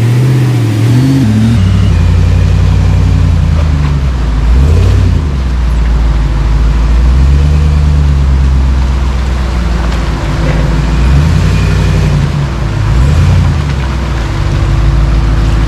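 Dodge Power Wagon truck engine running steadily at low revs, with brief rises in revs about five seconds in and again near thirteen seconds.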